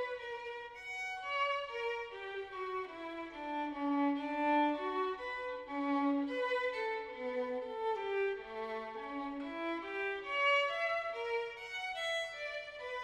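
Background music: a violin playing a slow melody of held notes that step down and back up.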